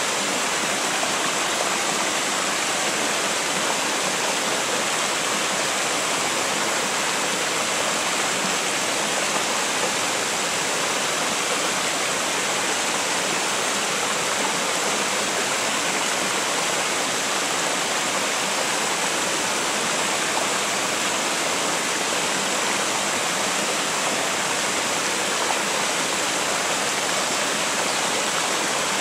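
Mountain river spilling down a low stepped weir and over rock ledges in small cascades: a steady, even rush of water.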